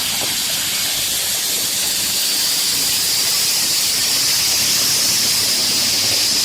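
A loud, steady hiss that holds level throughout, strongest in the upper range, and cuts off abruptly just after the end.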